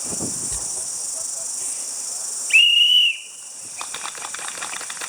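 A game whistle blows one short, loud blast of about half a second, a little past halfway, signalling the start of an airsoft round. Beforehand a steady high chirring of insects fills the background. After the blast comes rapid rustling and ticking.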